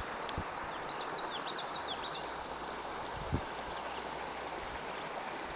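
Outdoor riverside ambience: a steady soft hiss with a songbird singing a quick run of high chirps during the first two seconds, and a soft thump about a third of the way in.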